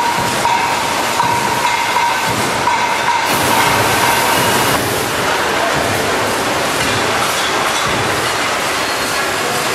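Concrete roof tile production line running: steady machinery noise with rattling from the tile conveyor and a thin whine in the first few seconds. It turns hissier from about three to five seconds in.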